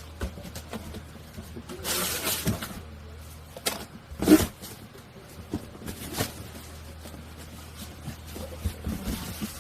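Handling noises: rustles and knocks of objects being moved, with the loudest knock a little after four seconds, over a steady low hum.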